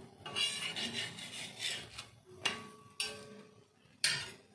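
Oil being spread over a paratha on a hot iron tawa: a run of rasping strokes of a spoon or spatula, each starting sharply and then fading, with sizzling. The loudest stroke comes near the end.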